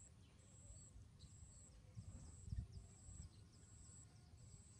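Faint outdoor animal ambience: a high buzzing chirp about half a second long, repeating a little faster than once a second, with a dull low thump about two and a half seconds in.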